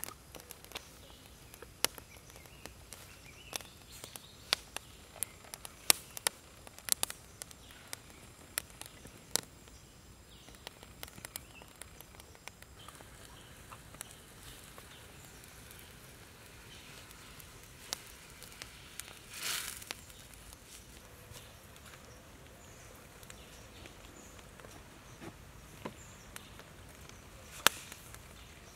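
Hands at work preparing food on a bamboo mat: scattered sharp clicks and taps, many in the first ten seconds and fewer after, with a short hiss about two-thirds of the way through.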